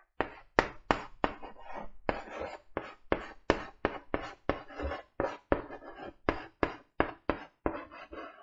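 Chalk writing on a blackboard: a quick run of sharp taps and scratches from the chalk stick, about three strokes a second, as letters are written out.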